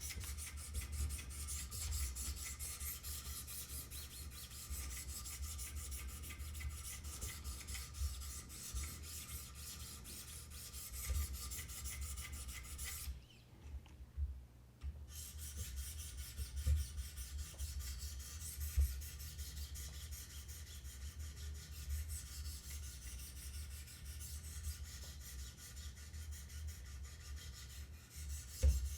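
Wicked Edge sharpener's 800/1000-grit stones rasping along a CPM-M4 steel knife edge in quick repeated strokes. The stroking stops for a couple of seconds about halfway through, then resumes.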